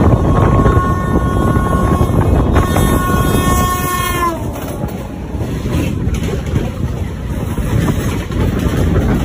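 A train horn sounds for about four seconds, more tones join it about halfway through, then its pitch drops as it cuts off. Under it and after it, the MEMU train runs with a steady rumble and wind noise on the microphone.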